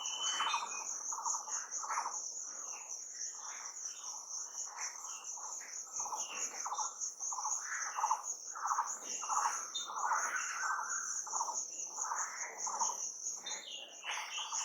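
Crickets trilling steadily at a high pitch, with many short, repeated calls at a lower pitch overlapping throughout.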